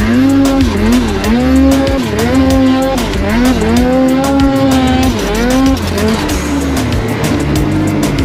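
Two-stroke mountain snowmobile engine revving up and down over and over as the sled ploughs through deep powder, then running at a steadier pitch near the end.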